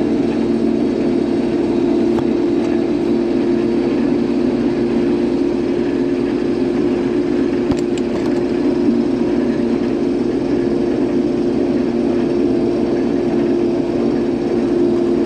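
Case IH combine harvester running under load, its engine and threshing machinery making a steady drone with a strong constant hum.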